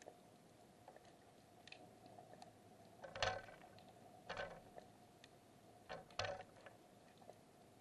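Faint underwater ambience picked up by a submerged camera: a steady low hum with scattered small clicks, and three louder crackling knocks about three, four and a half, and six seconds in.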